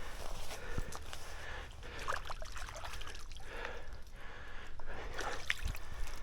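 A man breathing hard and fast, panting in repeated breaths, with a few light rustles and clicks.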